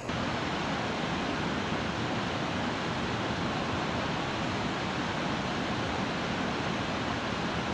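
River rapids rushing steadily, white water pouring over rock ledges.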